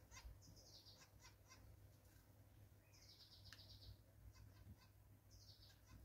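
Faint songbirds calling: high chirps and short trills that come every second or two, some sliding down in pitch, over a low steady hum.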